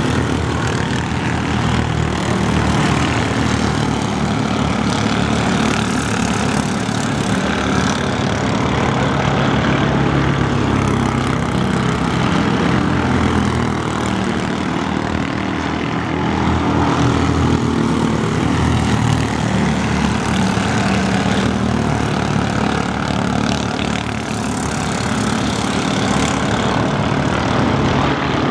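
Several Mini Cup race cars' engines running together at racing speed around a short oval, their pitch wavering up and down as the cars lap and pass.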